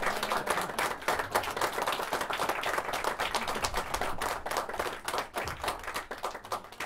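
Audience applause: a dense patter of many hands clapping that gradually fades out.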